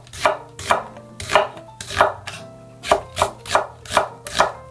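Chef's knife slicing half an onion into strips on a wooden cutting board: a series of knife strokes through the onion onto the board, about two a second, with one short pause partway through.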